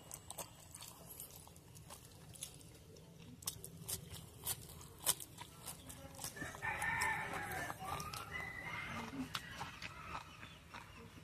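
A rooster crows once, a long call about six seconds in. Around it are scattered close clicks and smacks of a mouth chewing noodles.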